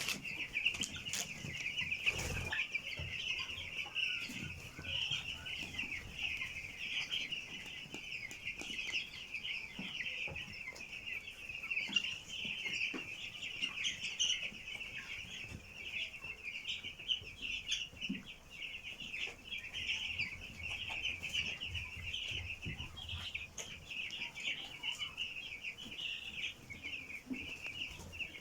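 A flock of ten-day-old broiler chicks peeping continuously, many high calls overlapping, with a few soft knocks. No sneezing is heard; the birds' earlier sneezing has cleared.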